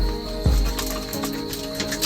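Background music with held notes and soft low beats, over a steady high thin tone.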